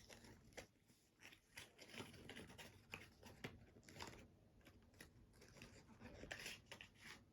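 Faint rustling and light clicks of sticker sheets and paper or plastic packaging being handled and slid back into their packet.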